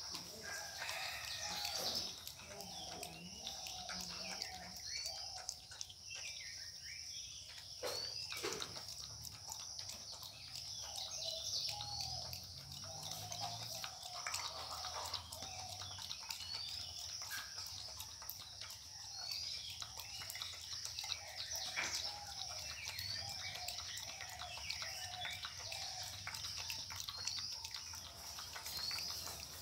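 Outdoor ambience of birds calling with short, repeated chirps over a steady high drone of insects, with a few sharp clicks, two of them about eight seconds in.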